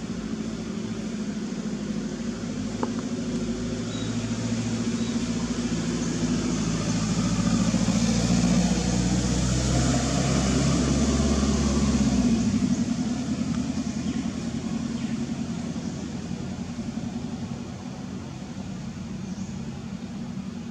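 A motor vehicle's engine running with a steady low hum that swells louder over several seconds and then cuts off abruptly about twelve seconds in, leaving a quieter traffic-like hum and hiss.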